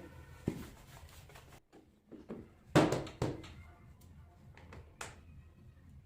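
Knocks and clicks of a motorcycle's air filter box being fitted back in place by hand: a handful of separate sharp handling knocks, the loudest about three seconds in.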